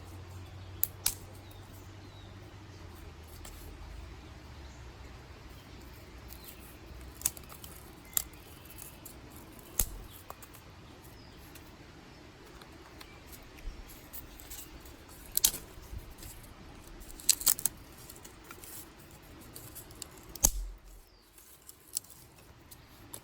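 Dry sticks snapping: separate sharp cracks every few seconds, some single and some in quick runs of two or three, the loudest a little before the end.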